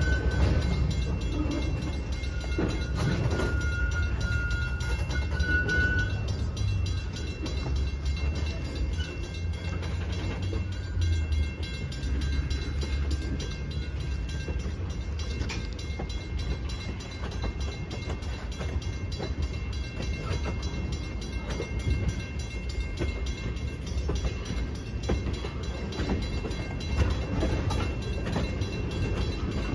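Freight train of tank cars rolling past: a steady low rumble of steel wheels on rail, with scattered clicks and knocks from the wheels and couplers. A faint high squeal comes and goes in the first few seconds.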